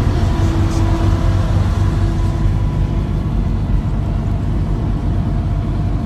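A boat's engine running steadily, a low drone with a constant hum and no change in speed.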